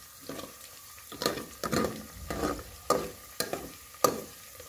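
Chopped onions frying in oil in an aluminium pot, stirred with a metal spoon that scrapes against the pot about every half second over a low sizzle. The onions are being fried until browned, the first stage of a chicken curry.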